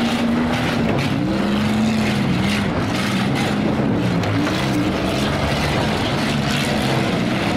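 Several demolition derby cars' engines running and revving together, their pitch rising and falling as the cars drive around.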